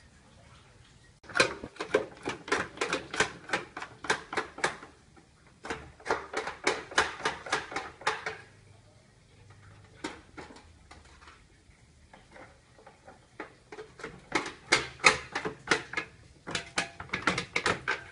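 Rapid chopping with a blade on a cutting board, about four to five quick strikes a second in runs of a few seconds, with short pauses and a few single strikes between the runs.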